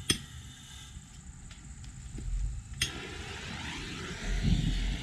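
Propane burner under a steel drum being relit: fairly quiet, then it catches suddenly about three seconds in and runs with a steady rushing flame noise, with a louder low rumble near the end.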